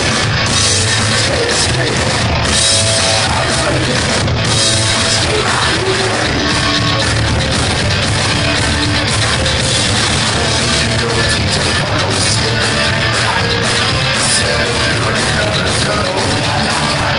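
Psychobilly band playing loud live rock: upright double bass, electric guitar and drum kit, with a singer's vocals.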